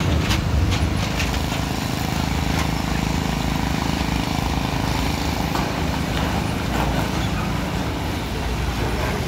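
Heavy truck's diesel engine running steadily at low speed as the truck drives onto a ferry's steel deck, with a few light clanks in the first couple of seconds.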